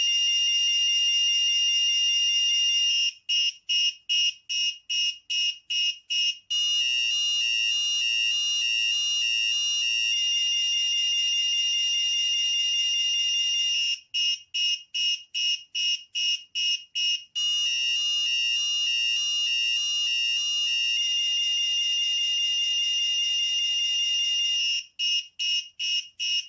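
Electronic motion alarm of an Arduino project sounding after someone came close to its ultrasonic sensor. It is a shrill, piercing tone that holds steady for several seconds at a time and switches three times into runs of quick beeps, a little over two a second.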